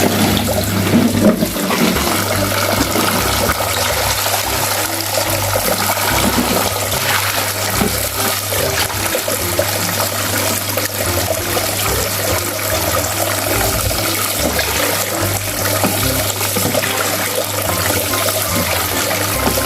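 Steady running water rinsing sand off toy trucks.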